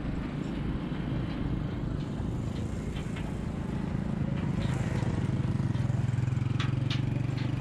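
Vehicle engine running with a low, pulsing rumble that grows louder about halfway through, as if drawing closer, with a few sharp clicks.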